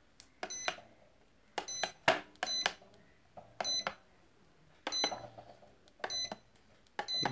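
Electronic computing scale's keypad being tested: about eight key presses, roughly one a second, each giving a click and a short high beep. The beeps show that the re-soldered key switches register.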